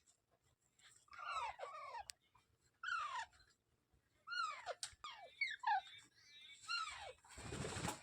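Green parrot making a series of short calls, each falling in pitch, about six over the stretch, followed by a brief burst of noise near the end.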